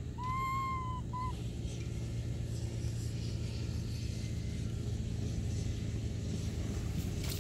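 A steady low rumble, with a young monkey's clear, pitched coo call near the start that arches up and down for under a second, followed by a brief second note.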